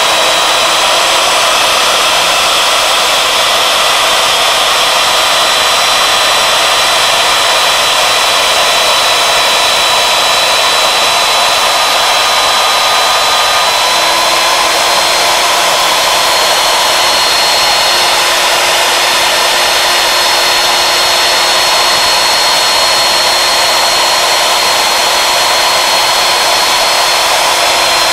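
Wood router spindle on a CNC lathe running at high speed while cutting a slot into a wooden post: a steady motor whine over the noise of the cut. The pitch shifts slightly about halfway through.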